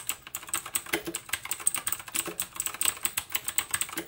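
Typing on an Aukey KM-G9 87-key mechanical keyboard with Outemu Blue clicky switches: a fast, uneven run of sharp keystrokes, several a second, each with a pretty loud audible click.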